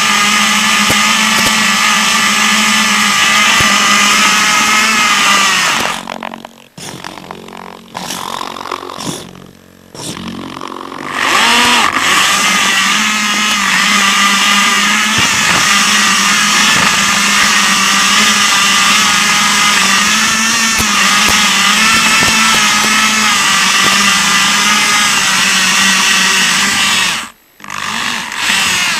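Electric drive motors and gears of a remote-controlled rover running with a loud, steady whine. About six seconds in it drops off for several seconds in short stop-start spurts, then winds back up, and it cuts out again for a moment near the end.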